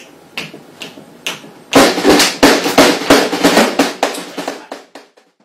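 Drums being struck: three single hits, then from about two seconds in a fast run of drum strikes like a drum roll that fades away near the end.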